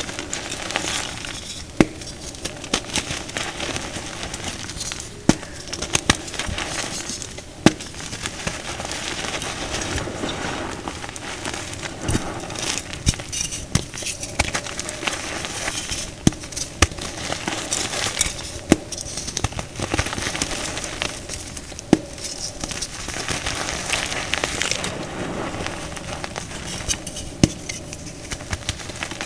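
Hands crushing and crumbling dyed chalk blocks into powder: a dry, crackling crunch that keeps going, with sharp snaps every second or two as pieces break off.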